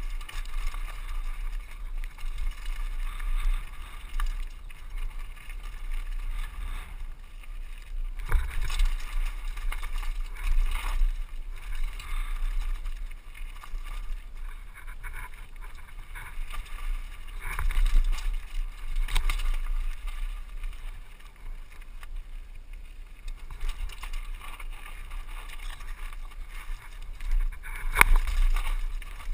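Downhill mountain bike rattling and clattering over a rocky trail, with wind rumbling on the microphone. A few sharp knocks from the wheels striking rocks, the loudest near the end.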